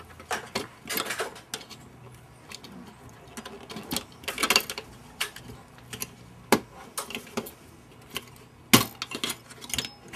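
Plastic keys of a Sequential Circuits Prophet-5 synthesizer being worked off the keybed by hand: irregular clicks and clacks of the keys and their metal back combs, with a louder snap near the end.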